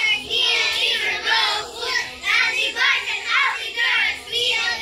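A group of young children chanting a song together in unison, loud and rhythmic.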